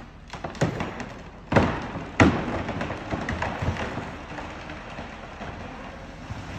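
Road and wind noise from a moving vehicle, with several uneven thumps against the microphone, the loudest about one and a half and two seconds in.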